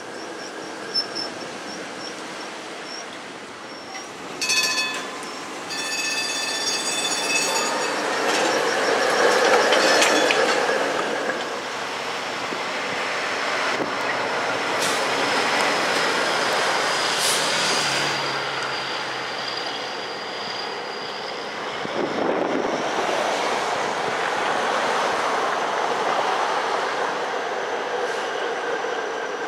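PCC streetcars running on street track: a car rolls by with steady wheel and rail noise, louder about nine to eleven seconds in. A short ringing signal of several clear tones sounds a few seconds in, and a thin high wheel squeal runs through the middle, with city traffic around.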